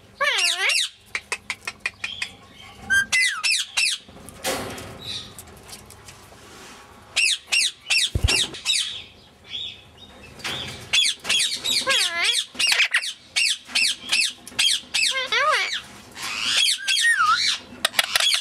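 Grey Indian ringneck parakeet chattering: rapid spells of warbling, whistled calls and squawks that slide up and down in pitch, with a quieter stretch about a third of the way in.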